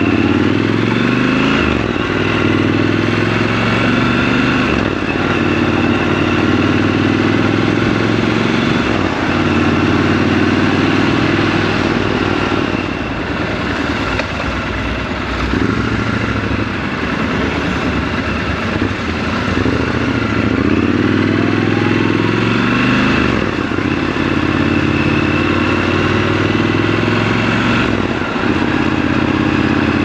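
Triumph Scrambler 1200 XC's 1200 cc parallel-twin engine under way, revs climbing and then dropping several times as the rider shifts gears and eases the throttle, over a steady rush of wind and road noise.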